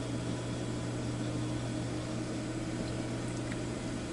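Steady low electrical hum with an even hiss, with no other events.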